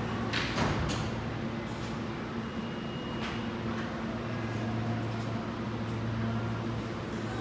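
A New York City subway train standing at a station platform with its doors open, its onboard equipment giving a steady low hum. There is a brief clunk about half a second in.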